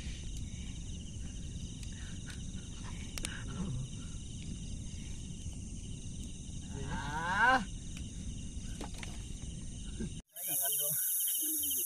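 Crickets chirping steadily over a low rumble, with one drawn-out man's voice about seven seconds in. Just after ten seconds the sound cuts out for a moment and comes back with a brighter hiss and the crickets still going.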